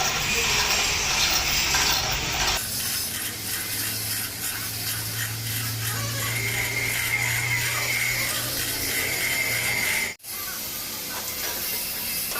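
Workshop machinery noise: a hissing clatter at first, then a steady low hum with a high whine over it, broken by a sudden dropout about ten seconds in.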